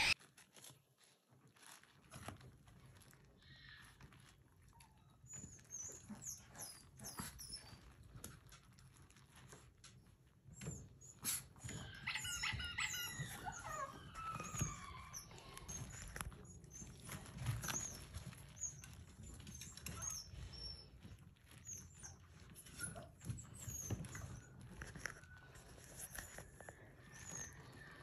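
Newborn Maltese puppies squeaking and whimpering faintly as they crawl over each other, with soft rustling of the fabric bed beneath them. About halfway through, one gives a longer falling whine.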